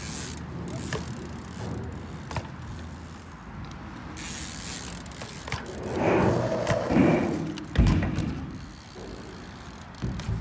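Bicycle rear-hub freewheel ticking as the bike coasts, with tyres rolling on concrete. About six seconds in there is a louder scrape, followed by a heavy thud near the eight-second mark as the bike lands.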